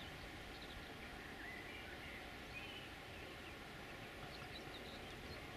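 Quiet outdoor ambience: a few short bird chirps over a low, steady background rumble.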